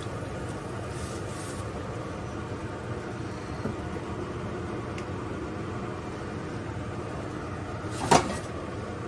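Steady background hum of pots cooking on a gas range, with a sharp knock of a utensil against cookware about eight seconds in as noodles are lifted out and laid in the pan.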